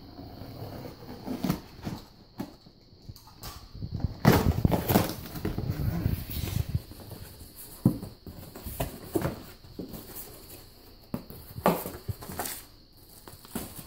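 Handling of a shipping box and its packaging: irregular rustling and crinkling with scattered knocks and thumps, busiest a few seconds in and with sharp knocks near the end.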